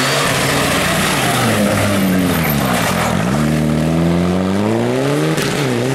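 Rally car engine with its revs dropping for about three seconds, then climbing steadily as it accelerates again, over loud tyre and road noise.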